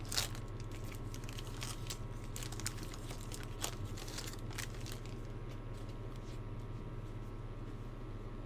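Trading cards and pack wrapper being handled: soft scrapes, crinkles and light clicks for about five seconds, then only a low steady hum.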